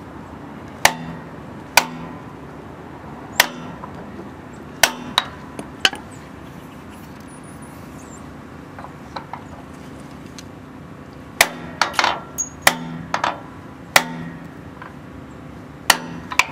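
Ball-peen hammer striking a seal driver to tap a new rear axle seal into the axle housing bore of a Ford F100: sharp metal-on-metal taps, each with a short ring. Several spaced taps come first, then a pause of several seconds, then a quicker run of blows near the end.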